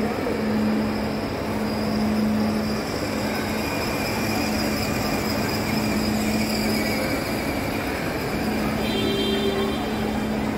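Steady indoor shopping-mall ambience: an even rushing background noise with a constant low hum.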